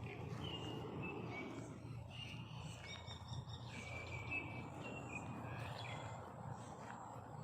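Small birds chirping in short, repeated clear notes over a steady low outdoor rumble.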